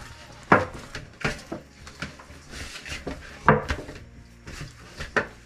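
Chapati dough being kneaded by hand in a stainless steel basin: the dough is pushed, lifted and thumped against the metal bowl in irregular knocks, roughly one a second.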